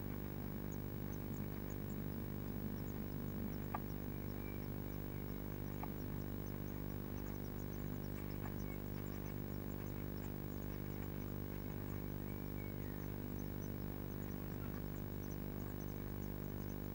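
Steady electrical hum, with many faint, very short high-pitched begging calls from blue tit nestlings scattered over it and a few light clicks.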